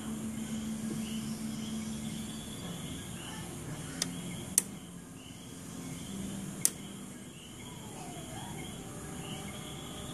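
Sharp clicks from the engine compartment of a 1992 Toyota 4Runner: two about half a second apart some four seconds in, and one more near seven seconds, over a steady low hum. The owner says the engine shuts off once this clicking starts.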